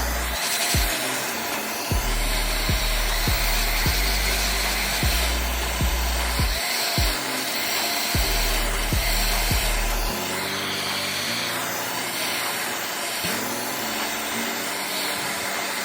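Background music with a repeating bass line, over the continuous whirring hiss of a small motor-driven tool or blower. The bass notes thin out about ten seconds in.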